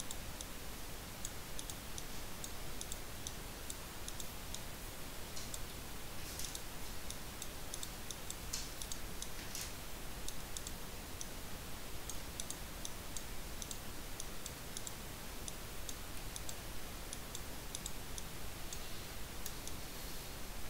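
Computer mouse clicking faintly and irregularly, a few clicks a second, over a steady background hiss.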